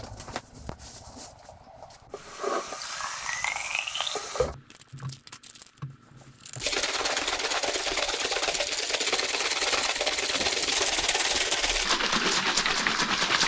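Plastic sports drink bottles being prepared: a pour whose pitch rises a few seconds in, then, from about halfway, a long dense rustling rattle of drink powder and bottles being handled and shaken.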